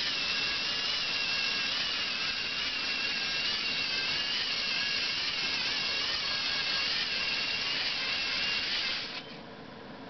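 Lego Mindstorms car's electric drive motors and gear train running with a steady whine whose pitch wavers slightly, cutting off suddenly about nine seconds in as the drive motors stop.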